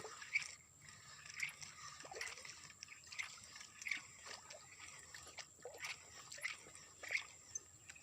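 Faint water splashing and sloshing, in short bursts about every three-quarters of a second, as a hooked tilapia thrashes at the surface while it is played and reeled in.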